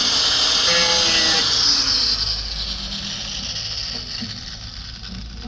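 A handheld power tool runs loudly with a dense high hiss, then is let off about two seconds in and winds down, its whine falling in pitch.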